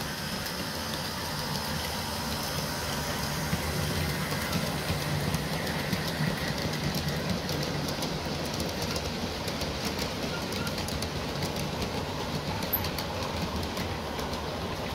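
G-scale model freight train rolling past on floor track: a steady low hum and rumble from the powered diesel units, with the wheels of the freight cars clicking over the rail joints.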